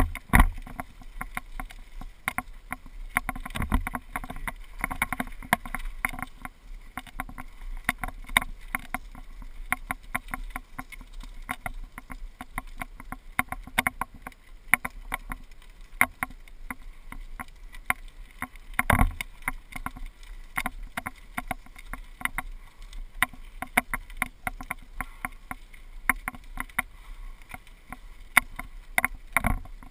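Loose GoPro camera mount rattling continuously on a mountain bike riding down a gravel trail, with a few sharper, louder knocks: about half a second in, midway through, and near the end.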